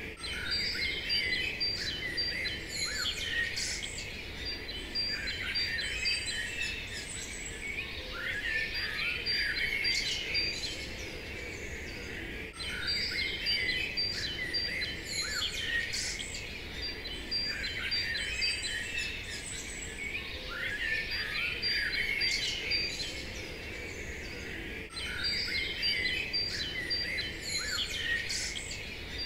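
Birds chirping and singing over a low steady outdoor hiss, as a background ambience. The same stretch of birdsong repeats about every twelve and a half seconds.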